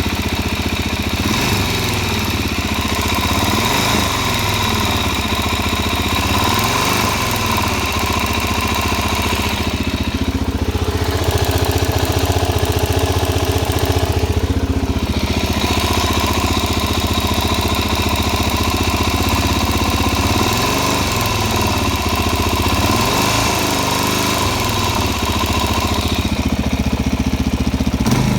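Suzuki DR-Z400SM's single-cylinder four-stroke engine running steadily at idle with a ticking noise. The tick appears once the engine is warm and came on after it was ridden with fuel in the oil, which the owner suspects as the cause.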